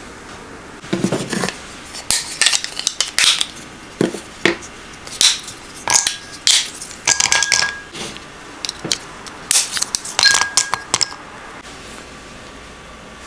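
A white chocolate bar snapped by hand into small pieces that drop into a glass bowl: a series of sharp snaps and clinks, some leaving a brief glassy ring.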